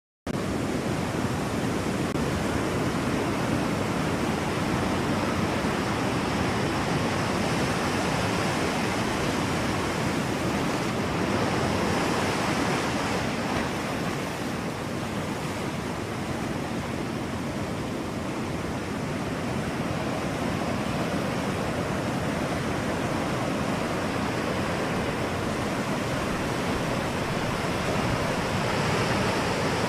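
Ocean surf: a continuous rush of breaking waves with gentle rises and falls in level.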